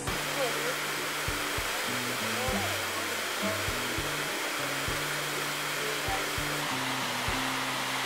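Waterfall rushing steadily, a dense hiss of falling water. Background music with a bass line and a regular beat plays under it.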